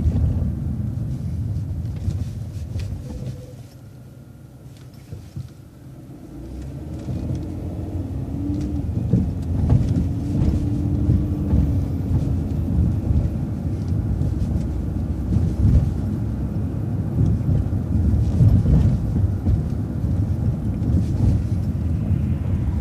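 A city bus heard from inside as it drives with a low rumble. It eases down to a quiet idle for a couple of seconds at a stop sign about four seconds in. It then pulls away, the drive noise building back up with a faint rising whine as it gathers speed.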